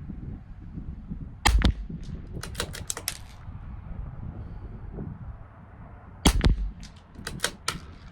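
Two shots from a CZ 457 LRP bolt-action .22 LR rifle, several seconds apart. About a second after each shot comes a quick run of metallic clicks as the bolt is worked to eject the spent case and chamber the next round.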